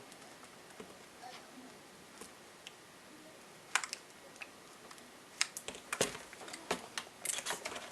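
Light clicks and taps of hands handling a laptop's screen panel and display cable connector: one sharp click nearly four seconds in, then a run of quick small clicks and taps near the end.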